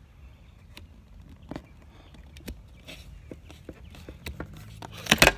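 Light scattered clicks and taps of a plastic headlight bezel insert being handled and pressed around a Jeep's headlight, with a louder quick clatter of knocks near the end.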